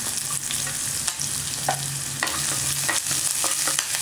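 Hot oil sizzling in a nonstick pan as chopped garlic, green chillies and dals fry, with scattered sharp crackles and pops. A wooden spatula stirs and scrapes the pan near the end, over a steady low hum.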